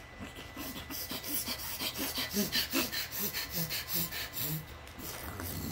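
A person making rapid, breathy mouth noises, about four a second, with a few short low voiced grunts in the middle: vocal sound effects for a puppet gulping Kool-Aid through a straw.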